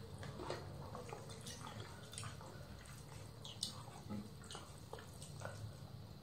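Faint eating sounds of rice eaten by hand off banana leaves. Fingers squish and mix the rice, and there are scattered small wet clicks and smacks of chewing, over a low steady hum.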